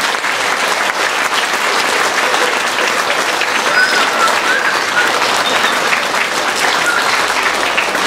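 An audience applauding steadily, a sustained round of clapping.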